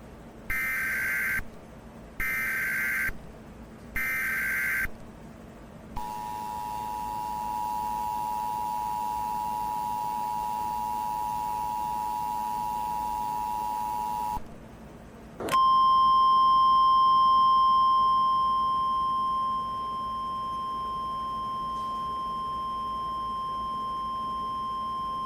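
Emergency Alert System tones: three short bursts of warbling SAME header data, then the two-tone EAS attention signal held for about eight seconds. After a brief gap comes the single steady weather-radio warning tone for about ten seconds, starting louder and easing down a little. Together they herald a tornado warning.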